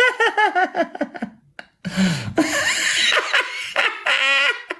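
Men laughing: a quick run of repeated 'ha-ha' syllables, a short break about a second and a half in, then more laughter toward the end.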